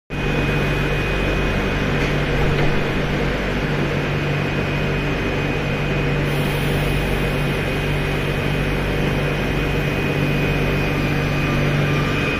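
SNCF Z 20900 double-deck electric multiple unit standing at the platform, its on-board equipment humming steadily, with a low drone and a high-pitched whine.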